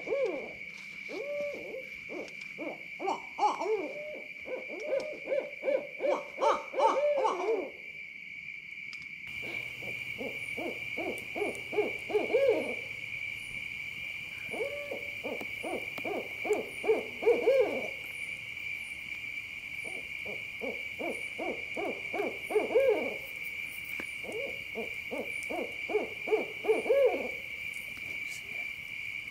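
Owls hooting in long runs of fast notes, each run building to a louder end, repeated every few seconds. A steady high-pitched hum runs underneath.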